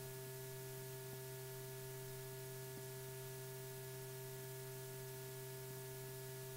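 Steady electrical hum with hiss from an old film soundtrack, and no other sound.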